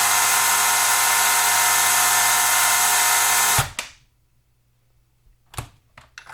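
Cordless brushless chainsaw running at full speed with the chain spinning free, a steady high whine that stops quickly about three and a half seconds in as the electric chain brake catches. Then near quiet with a knock and a couple of clicks from handling the saw.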